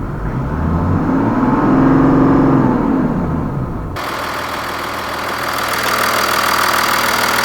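Mazda CX-60's 3.3-litre inline-six diesel engine revved once, its pitch rising and then falling back. About four seconds in the sound cuts abruptly to a brighter, steady hiss with a few steady tones.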